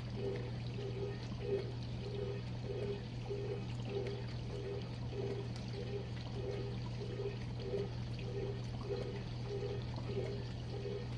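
GE Profile dishwasher in its final rinse: water spraying and splashing inside the tub over the steady hum of the wash pump, with a regular pulsing tone about one and a half times a second.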